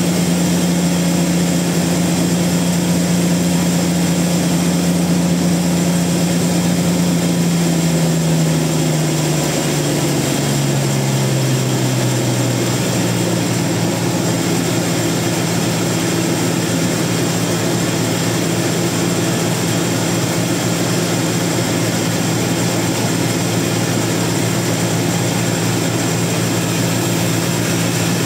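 Sawmill machinery running loud and steady, a low engine-like drone whose pitch sinks partway through and then holds at a lower note.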